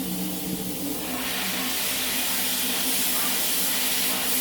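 Sandblaster nozzle blasting abrasive: a loud steady hiss that swells about a second in and holds, over a steady motor hum.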